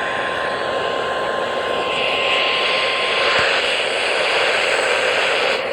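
Weather radio receiver hissing with static as the distant NOAA Weather Radio signal fades out, a faint steady tone under the noise for the first three seconds or so.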